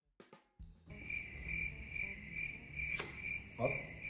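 Crickets chirping: an even, high, pulsing chirp a little over twice a second over a low hum, starting about half a second in.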